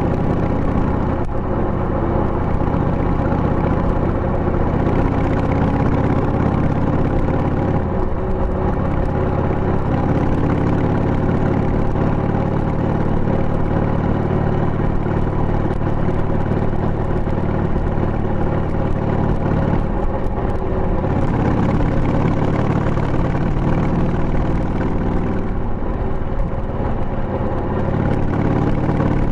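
2000 Harley-Davidson Sportster 883's Evolution V-twin engine running under way, heard through a tapered muffler with its baffle fitted. The engine note changes pitch three times.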